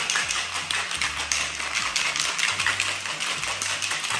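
Ice cubes rattling inside a stainless-steel cobbler cocktail shaker shaken hard by hand, a fast continuous clatter of ice against metal.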